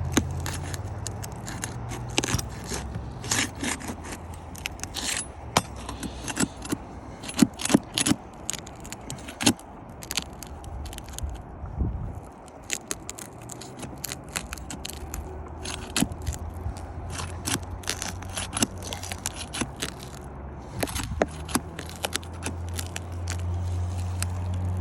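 Irregular scraping and sharp clicks of a tool working under roof shingles, prying a sealed shingle loose, over a steady low hum that drops away about halfway through and comes back louder near the end.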